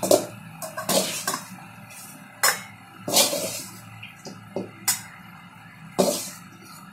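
Metal spoon scraping and clinking against a steel pan while stir-fried raw-banana poriyal is scooped into a stainless-steel lunch box, with about six sharp clinks and scrapes spaced a second or so apart.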